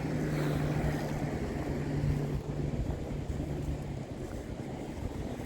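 Wind buffeting the microphone, with a steady low motor hum that stops about four seconds in.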